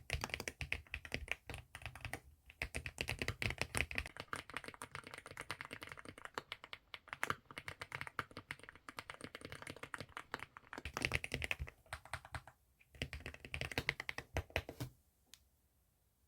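Mechanical keyboard being typed on rapidly, a steady run of key clicks with two short pauses, ending about a second before the end with one last click.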